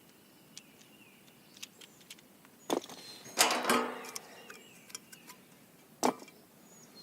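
Hands handling small parts and packaging: scattered light clicks, a sharp knock a little under three seconds in, a louder rattling rustle just after it, and another sharp knock about six seconds in.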